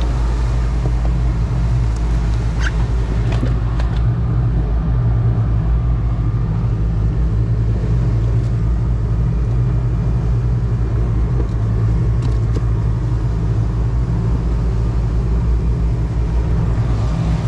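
Outboard engines of a fishing boat under way, running with a steady low drone. A couple of light knocks sound a few seconds in.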